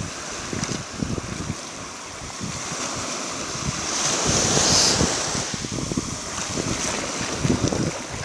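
Small waves washing up on a sandy shore, one rushing in louder about four seconds in, with wind buffeting the microphone.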